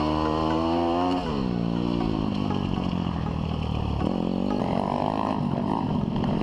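A 150–160cc four-stroke pit bike engine heard from on board while it is ridden hard on a dirt track: held at high revs, falling off sharply about a second in as the throttle eases, then pulling up again about four seconds in.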